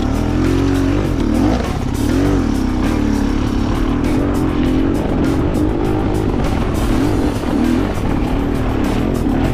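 Enduro motorcycle engine running under load off-road, its pitch rising and falling again and again as the throttle is worked.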